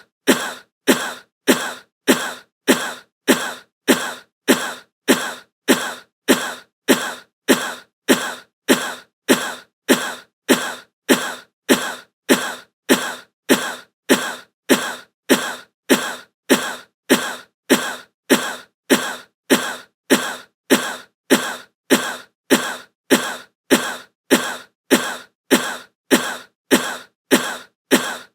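A short, sharp stock sound effect repeated in a steady loop, about three times every two seconds, each one dying away quickly.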